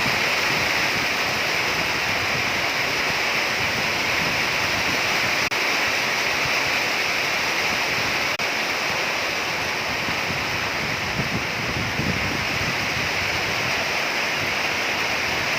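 Rainstorm: rain pouring steadily in strong wind.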